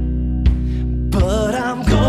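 Background music: held chords with a light beat, and a wavering melody line coming in a little after a second.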